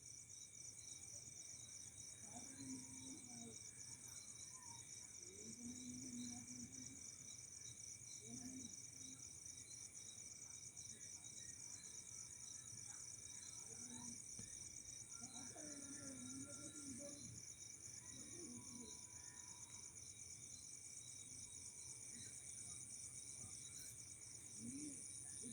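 Faint, steady chorus of crickets trilling, a high, finely pulsing buzz that doesn't let up.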